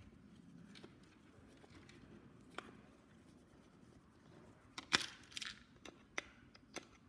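Hand screwdriver turning out small screws from the plastic handle housing of a pressure-cooker lid: faint scraping with scattered small clicks, and a short cluster of louder clicks about five seconds in.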